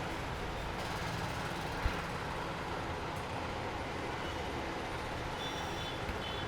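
Steady low rumble of background noise, with one dull thump about two seconds in.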